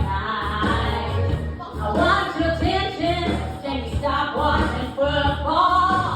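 Pop song with a singing voice over a steady bass beat.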